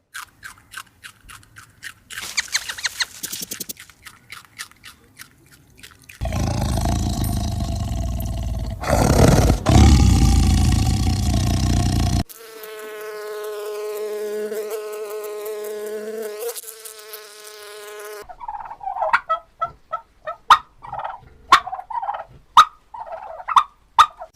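A run of different animal calls, one after another: first rapid clicking, then a loud, noisy stretch about a quarter of the way in, then a long pitched call, and near the end a string of short, quick calls.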